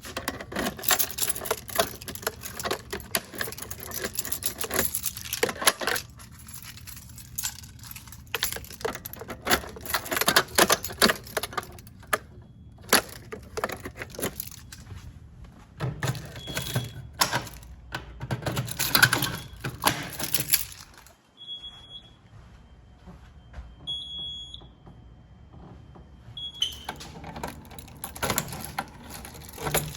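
Clicking, clattering and rattling as a Notifier fire alarm pull station is worked by hand during silent testing, with no horns sounding. A few short high beeps come in the second half.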